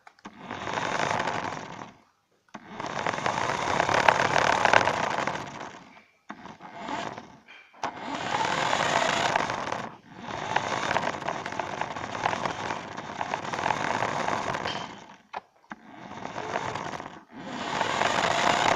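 Remote-control toy car's motor and gears whirring with its tyres rolling on a hard floor, heard close up from on board. It comes in about seven spurts of one to five seconds with short breaks between, as the throttle is pressed and let go.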